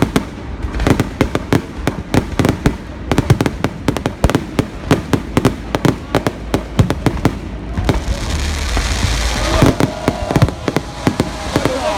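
Fireworks display: a rapid barrage of shell bursts, several bangs a second. About eight seconds in, a steady hiss rises and the bangs thin out.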